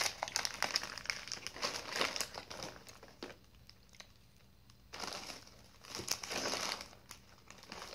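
Plastic snack wrapper crinkling as it is handled: a stretch of crackling, a pause of nearly two seconds, then two shorter bursts.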